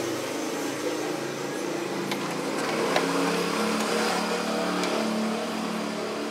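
A motor vehicle engine running with a slowly shifting pitch, with a few light clicks from plastic and metal parts being handled.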